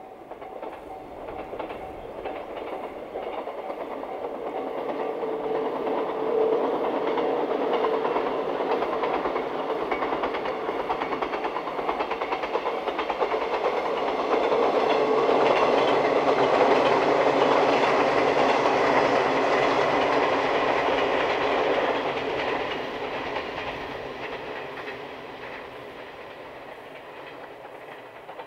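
381-series electric train running past, its wheels rumbling and clattering on the rails. The sound grows louder over about fifteen seconds, holds, then fades away as the train draws off.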